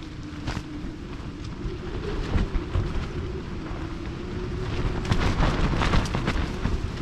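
Strong night wind gusting against the tent and microphone, a constant rumble. It builds about five seconds in, with a cluster of sharp rattles as the gust hits. A faint steady low tone runs underneath.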